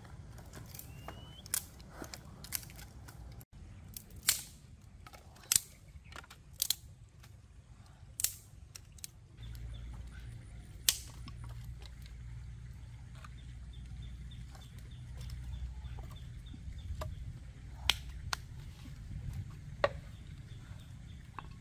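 Sharp snaps and knocks of sticks and stones being handled, then, from about nine seconds in, a small wood campfire burning with a low steady rumble and a few sharp crackling pops.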